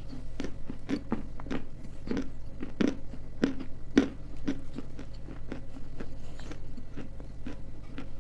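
Dry edible clay crunched and chewed close to the microphone, with sharp crisp bites at roughly two a second.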